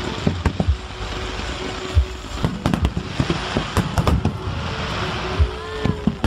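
Fireworks display: many sharp bangs and crackling bursts in quick succession over a continuous crackle.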